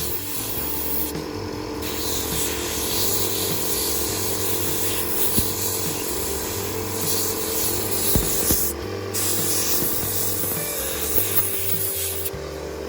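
Steady spraying hiss that stops abruptly about a second in, again near nine seconds and near the end, over a low pulsing hum.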